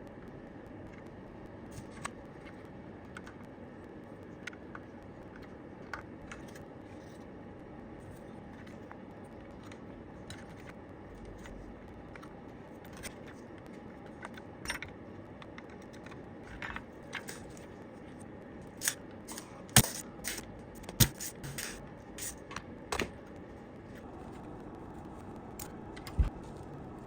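Light clicks, taps and clinks of small tools and metal parts being handled on a workbench, over a steady background hiss; a quick run of sharper knocks comes about two-thirds of the way through, and one more near the end.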